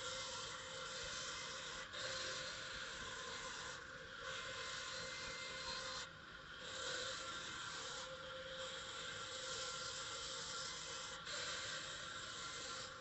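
Sawmill band saw ripping wood into thin 4 x ½ boards: a steady cutting noise over a constant machine tone, dipping briefly every two seconds or so as one board clears the blade and the next is fed.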